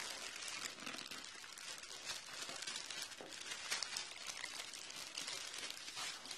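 Plastic mailer bag crinkling as it is handled and squeezed, a dense run of small crackles.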